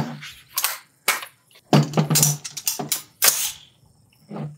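AR-15 rifle being handled at the bench: a series of sharp clicks and clacks, irregularly spaced, with a short lull near the end.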